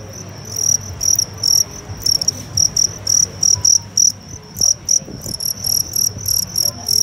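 Fighting cricket chirping in short, high, irregular bursts, several a second, while a tickler brushes at it.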